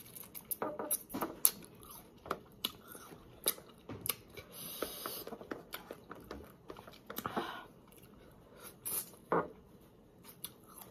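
Close-up eating of juicy Marian plums: chewing, biting and lip-smacking, heard as irregular wet smacks and clicks, with a brief hiss-like slurp about four and a half seconds in.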